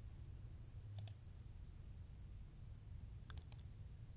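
Faint computer mouse clicks: a quick pair about a second in and two more about three and a half seconds in, over a low electrical hum.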